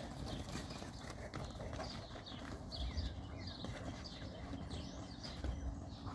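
A Boerboel and a Serbian Defense Dog play-wrestling on bare dirt: scuffling paws and dull thumps of heavy bodies, the heaviest about three seconds in and again near the end. Birds chirp in the background.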